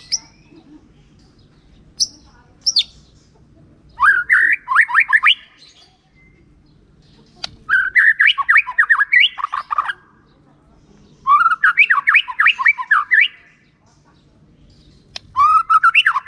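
White-rumped shama singing: a couple of short, sharp high notes, then four bursts of rapid, varied notes, each a second or two long, a few seconds apart.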